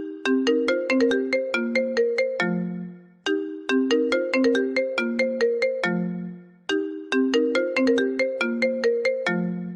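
iPhone ringtone playing: a short, bright melodic phrase of quick notes ending on a lower held note, repeating about every three and a half seconds.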